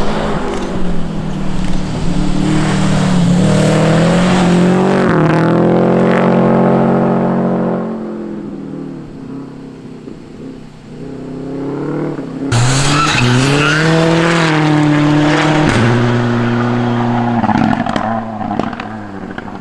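Rally car engines at full throttle on a snow stage. One car revs up through several quick gear changes and passes close, then fades away about 8 seconds in. A second car's engine comes in suddenly about 12 seconds in, shifts up twice, holds high revs and fades near the end.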